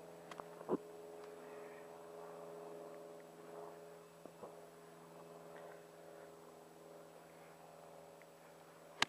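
A faint steady hum runs throughout, with a few small knocks early on, then near the end the single sharp click of a golf club striking the ball on a short approach shot.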